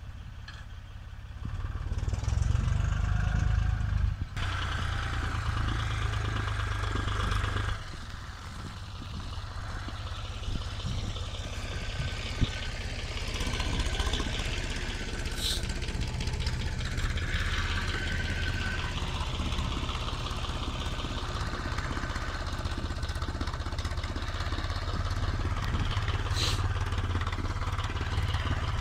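Steyr 8050 S16 tractor's diesel engine running steadily under load, getting louder about a second and a half in.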